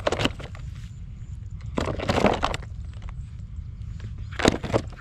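Rustling, scraping handling noise from a woven-mesh frog trap being carried and shifted, in three short bursts, over a steady low wind rumble on the microphone.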